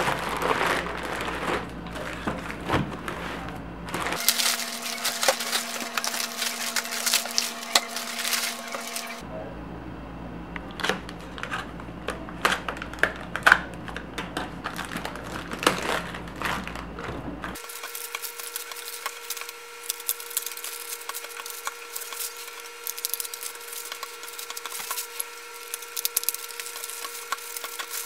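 Plastic shrink-wrap crinkling while small plastic juice bottles are pulled from a multipack and set down on a wooden table, with many light clicks and knocks.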